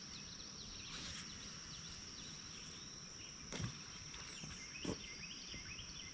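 Outdoor dawn ambience: a steady high-pitched insect trill with scattered small bird chirps. A brief swish about a second in and two soft knocks later.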